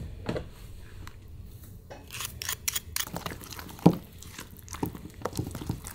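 Wooden spoon stirring a thick gochujang seasoning paste in a glass bowl. The spoon makes irregular light clicks and scrapes against the glass, with one sharper knock about four seconds in.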